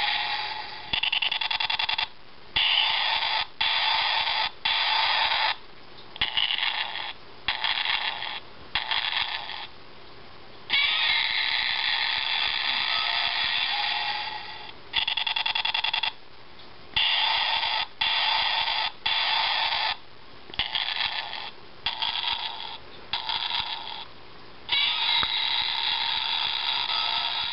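Parent Godzilla hand puppet's battery-powered sound chip playing its built-in monster sound effects through a small speaker, thin and tinny with no bass. The effects are set off over and over, more than a dozen times, each starting and stopping abruptly with short pauses between.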